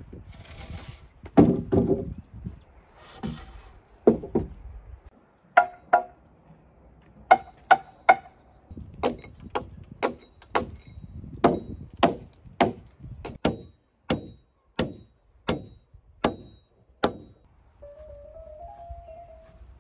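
Firewood being chopped: a long run of sharp wooden chops, roughly one every half second to a second, with music coming in near the end.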